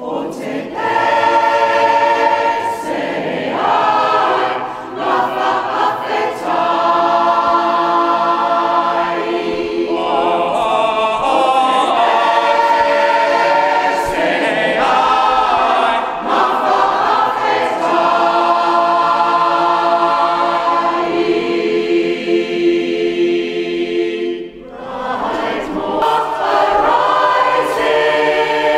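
Mixed community choir singing unaccompanied in held, many-voiced chords, with a short break about three-quarters of the way through before the singing picks up again.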